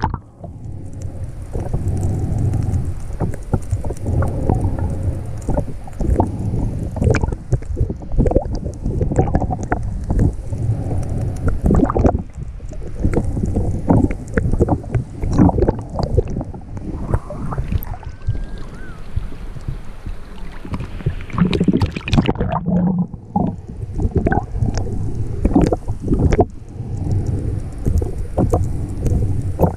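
Muffled water sloshing and rumbling around a GoPro 5 housing on a full-face snorkel mask as the snorkeler swims, with irregular knocks and crackles.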